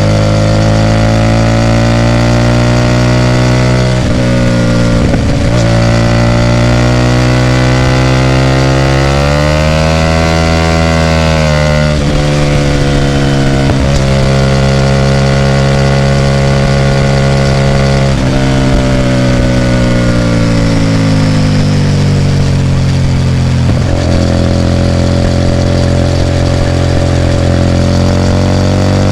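Hyosung GT250R's 250 cc V-twin running through a loud aftermarket Ixxile exhaust, the engine note holding fairly steady. Its pitch rises slowly about nine to eleven seconds in, then eases back down.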